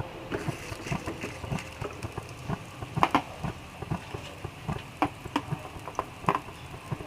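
Banana pancake batter sizzling in a hot frying pan, with irregular crackles and pops. A few louder pops come about three seconds in and again near the end.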